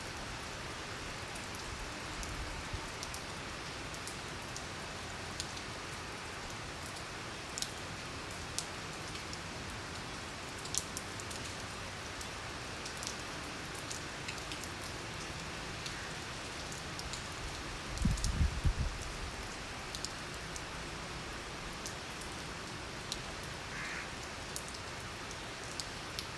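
Steady rain falling, with individual drops ticking sharply close by. About eighteen seconds in, a gust of wind makes a brief low rumble.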